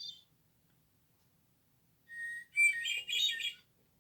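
Bird clock chiming the hour with a recorded bird song: high chirping whistles trailing off at the start, then a second song phrase from about two seconds in, lasting about a second and a half.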